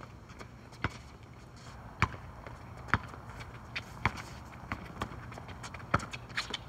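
A basketball bouncing on a court: sharp single bounces about once a second, with a few lighter taps between.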